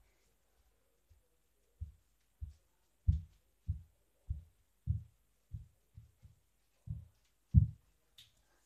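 A steady series of dull low thumps, about one every 0.6 seconds, starting about two seconds in: feet stamping on a wooden floor as a boy dances.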